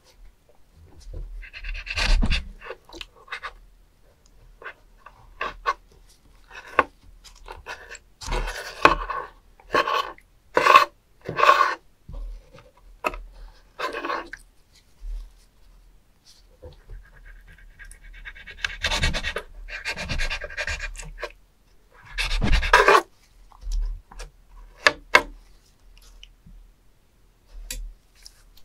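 Kitchen knife cutting and scraping live spoon worms on a wet wooden cutting board: irregular wet squelches and slices, and two longer scrapes of the blade across the board through the worms' fluid in the second half.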